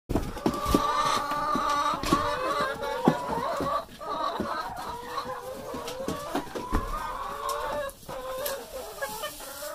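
A flock of chickens clucking and calling over one another, with a few scattered knocks and clicks among them.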